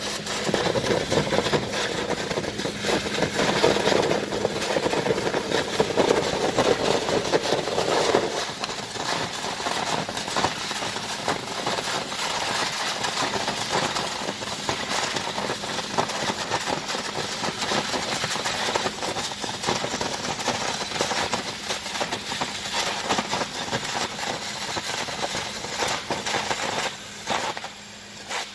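Hydrodemolition robot's ultra-high-pressure water jet blasting concrete: a continuous harsh hiss and crackle, with an engine or pump hum underneath. The blasting dips briefly near the end.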